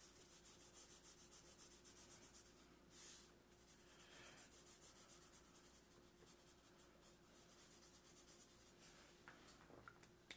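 Marker tips scratching on paper in quick, repeated hatching strokes, several a second, faint.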